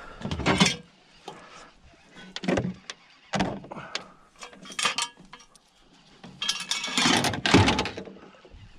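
Irregular knocks, clunks and rustling of gear and rope being handled in an aluminium boat: separate knocks about half a second, two and a half, three and a half and five seconds in, then a longer, louder stretch of clattering and rubbing near the end.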